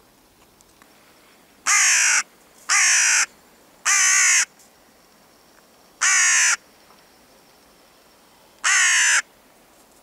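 Hooded crow cawing five times, each caw loud, about half a second long and dropping slightly in pitch, with uneven gaps between them.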